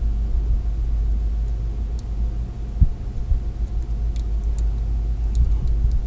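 Steady low background rumble with a faint steady hum, and a few faint small clicks as wire ends are worked into an alarm keypad's screw terminal block.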